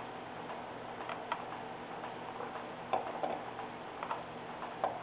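Faint, irregularly spaced light clicks and taps, about six in five seconds, over a steady low hiss, from a paintbrush working over a small carved wooden figure held in the hand.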